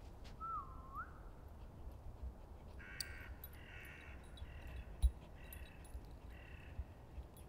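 A bird gives about five harsh calls in a row, starting about three seconds in. Before that comes a short whistle that dips and then rises. Low rumble and an occasional thump run underneath.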